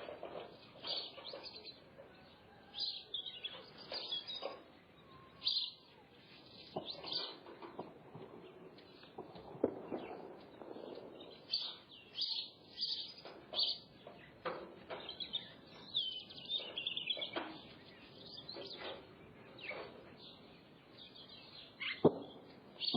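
Birds chirping and calling: short high chirps come again and again, about every second, with a few sharp clicks among them. The loudest is a sharp click near the end.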